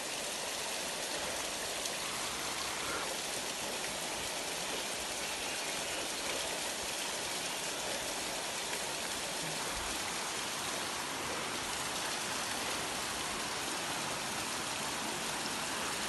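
Manoa Falls, a tall, thin waterfall, splashing steadily into its rock pool: an even, unbroken rushing hiss.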